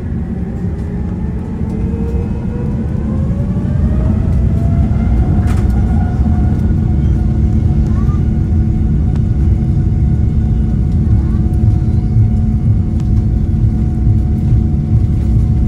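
Rolls-Royce Trent 7000 turbofans of an Airbus A330-900neo spooling up to takeoff thrust, heard from inside the cabin beside the engine. A rising whine levels off about five seconds in, over a loud low rumble that builds over the first few seconds of the takeoff roll.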